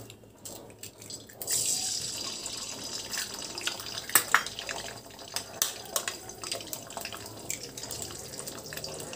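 Eggs frying in hot oil in a kadai: the oil starts sizzling about a second and a half in as the first egg hits it, and keeps up a steady sizzle with sharp crackles.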